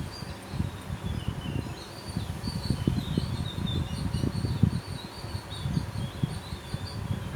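Outdoor ambience: a low, uneven rustling rumble close to the microphone, with rapid high-pitched chirping throughout.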